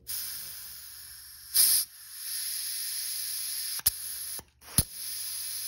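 Shop compressed air hissing through a GM 4L60E torque converter lockup solenoid, with a louder burst a little over a second in. Near the end there are two sharp clicks as the solenoid is switched, and the hiss cuts off briefly in between: the air shutting off when the solenoid closes, the sign that the solenoid works.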